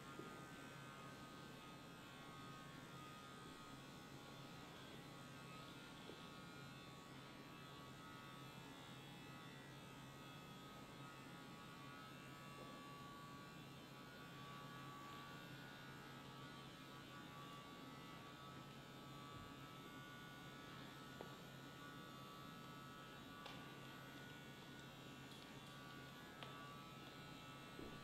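Small handheld electric hair trimmer running steadily with a faint, even buzz.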